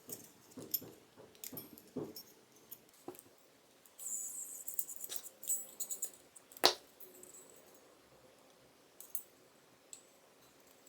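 The plastic housing of a Blitzwolf security alarm being handled and fitted back together by hand: small clicks and knocks, a scraping rustle about four seconds in, and one sharp click a little after six and a half seconds.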